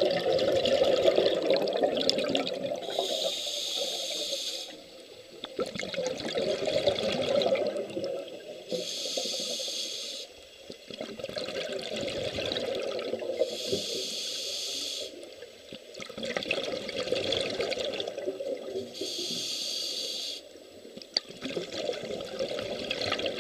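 Scuba diver breathing through a regulator underwater. Each breath starts with a short hiss as air is drawn through the demand valve, followed by a rush of bubbling as the exhaled air vents, about every five seconds.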